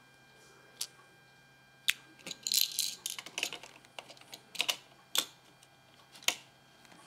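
Hard plastic Lego pieces clicking and clattering as fingers handle them: a few single clicks, with a quick run of rattling clicks about two and a half to three and a half seconds in.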